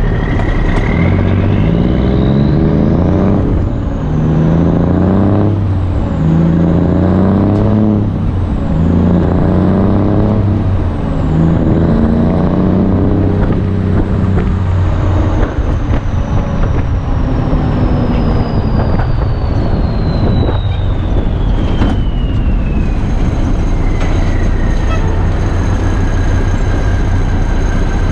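Straight-piped Cummins NTC 240 small-cam diesel in a 1982 Ford LN9000 pulling up through the gears of its 10-speed. Over the first half the engine pitch climbs and drops back at each upshift, about every two seconds, and then it runs steadily. A high whistle rises early on and slowly falls away in the second half.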